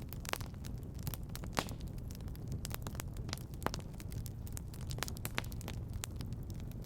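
Fire burning in a fireplace, crackling with irregular sharp pops over a steady low rumble of the flames; a few pops stand out louder than the rest.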